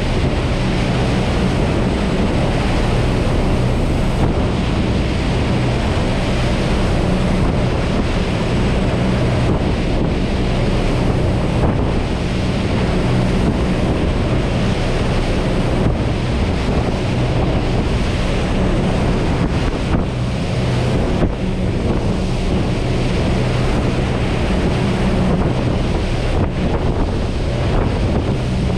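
Twin MAN V8 1200 hp diesel engines running steadily at speed, driving Marine Jet Power 350X waterjets. A steady low engine drone sits under the rush of the jet wash and wake, with wind buffeting the microphone.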